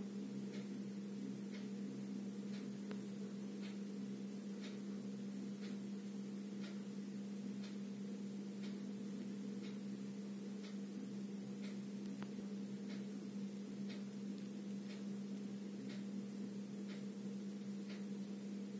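Faint regular ticking, about once a second, over a steady low hum.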